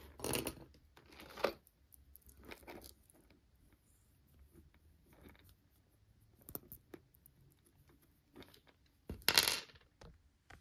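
Pieces of metal jewelry clinking and clattering as they are handled and sorted, with scattered light clicks in between; the loudest clatter comes near the end.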